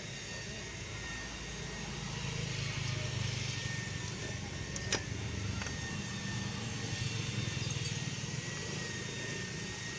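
Low engine rumble that swells a couple of seconds in and eases toward the end, with a single sharp click about halfway through.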